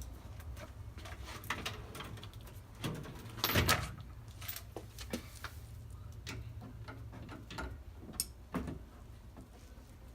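Socket wrench and metal tool work on a 14 mm brake bolt: scattered small clicks and clinks, with one louder clank about three and a half seconds in, over a low steady hum.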